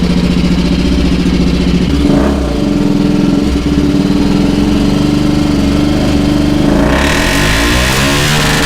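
Honda Titan motorcycle's 353 cc single-cylinder engine running through a stainless steel exhaust on a dynamometer, held at a steady speed and then opened up about seven seconds in, the pitch climbing as a power run begins.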